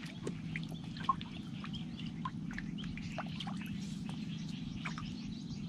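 Small birds giving short, scattered chirps, over a low steady hum.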